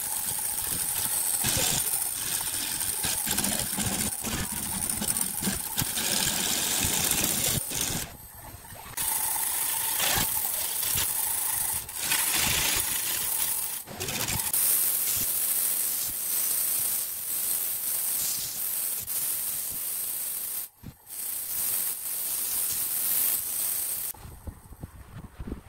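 Turning tool cutting a spinning segmented wooden vase on a wood lathe: a loud, steady hissing scrape full of ticks from flying chips, with a few brief pauses. About 24 seconds in it gives way to quieter sandpaper rubbing on the turning wood.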